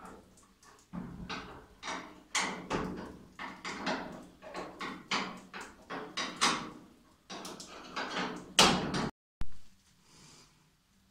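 Loose steel door of a Ford Mustang body shell clanking and knocking against its hinges and the bare body as it is offered up and fitted. It is an irregular run of sharp metal knocks, the loudest one near the end, and then the sound cuts off abruptly.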